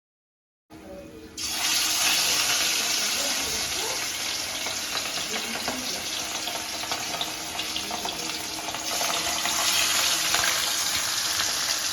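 Fish frying in hot oil in a pan: a steady loud sizzle with small crackles, starting faint just under a second in and jumping louder shortly after.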